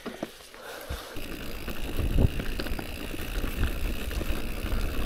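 A few small clicks, then a fat bike rolling over a rough track from about a second in: low tyre rumble with knocks and rattles that grows louder.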